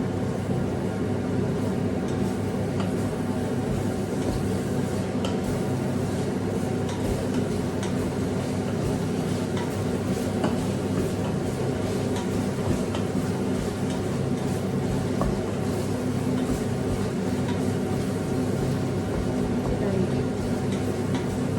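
Kitchen range-hood extractor fan running with a steady drone, with a few light clicks of a utensil against a pan now and then.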